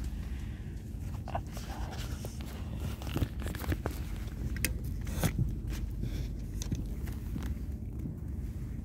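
Handling noise of a phone held close to the microphone: irregular rustling and clicks, the sharpest about three and five seconds in. Under it runs the steady low rumble and hum of a train carriage's interior.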